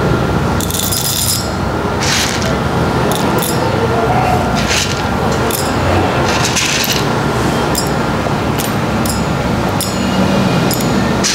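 Roasted coffee beans dropped by hand a few at a time into a stainless steel dosing cup on a scale, making light, irregularly spaced metallic clinks over a steady background hum.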